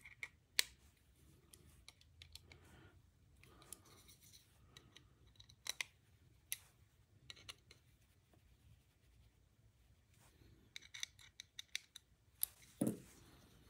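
Faint, scattered light metallic clicks and small scrapes of a precision screwdriver turning and seating the body screws of a folding knife with G10 handle scales, with a quick run of ticks near the end and one louder knock just after.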